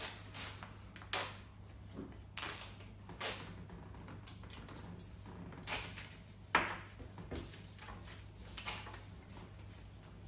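Paper raffle tickets being torn apart and handled: a string of short, irregular paper rips and rustles, over a low steady hum.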